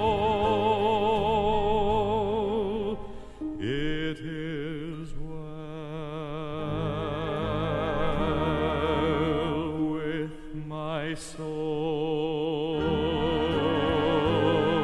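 Slow orchestral hymn accompaniment with no lead vocal: sustained chords with vibrato over a steady bass line. The music dips and moves to a new chord about three and a half seconds in.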